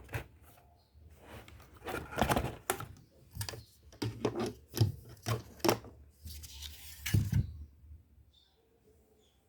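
Irregular clicks and knocks in small clusters, with a short rubbing sound about six and a half seconds in, from hands working with a mechanical keyboard.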